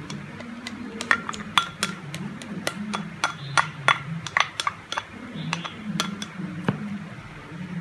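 A plastic spatula tapping and scraping against a small ceramic bowl to knock chopped spring onions out: a quick, uneven run of sharp clinks that stops shortly before the end.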